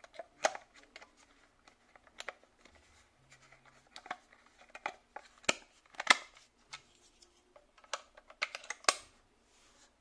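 Sharp plastic clicks and taps as a 9V battery is snapped onto its clip and pressed into a toy remote control's plastic battery compartment. The compartment cover is then fitted, with the loudest click near the end.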